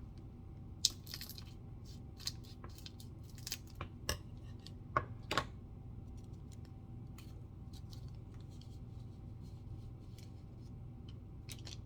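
Trading card pack wrapper being opened and handled: a run of sharp crackles and clicks of the foil wrapper, loudest in the first five or six seconds, then fainter scattered rustles, over a faint steady hum.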